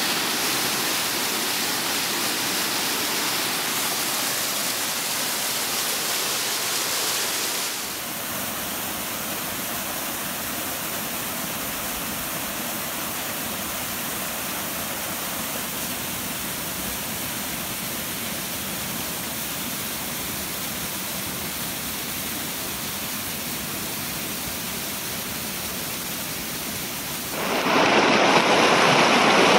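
Mountain stream waterfall rushing steadily. About eight seconds in the rush turns quieter and even, as a small cascade spills into a clear pool. Near the end the white water rushes louder and close by.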